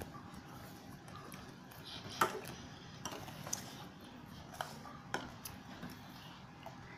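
Toy cooking-set dishes and utensils being handled, with a few separate light clinks and taps; the loudest comes about two seconds in.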